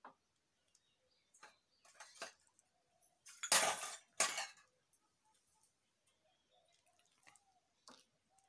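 Metal vessels clinking and knocking, with one louder clatter in two parts about three and a half seconds in.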